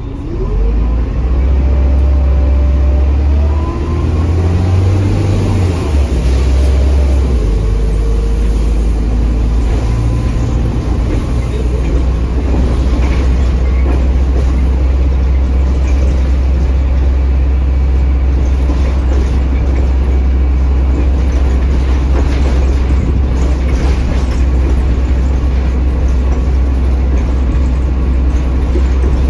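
A Mercedes-Benz OM926 six-cylinder turbo-diesel in an OH1830LE bus, heard from inside the cabin as the bus pulls away. The engine gets louder and its pitch climbs over the first few seconds, dropping back at the automatic gearbox's shifts, and then it settles into a steady cruising rumble.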